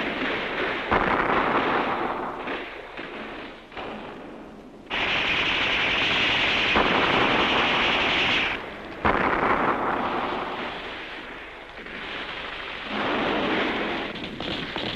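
Battle soundtrack of sustained machine-gun and rifle fire that swells and fades in waves. It comes in with sudden loud surges about a second in, again at about five seconds and at about nine seconds.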